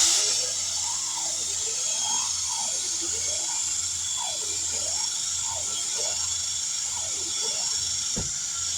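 Air-powered drill running at high speed, with a steady high hiss and a lower whine that repeatedly rises and falls as the cutter works through the tire's puncture hole.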